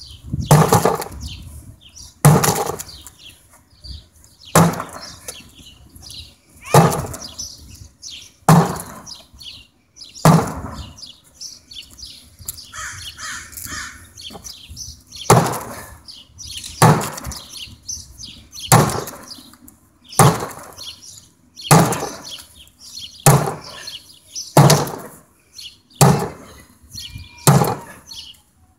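A pickaxe driven again and again into a thick door, punching holes in it. The blows are sharp and heavy, about one every one and a half to two seconds, roughly fifteen in all, with a pause of several seconds near the middle.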